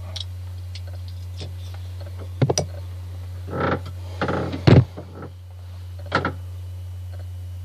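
Handling of an opened glass beer bottle, heard as scattered knocks and rustles with the loudest thump a little before five seconds in. Short sniffs follow near the end as the neck of the bottle is smelled. A steady low hum runs underneath.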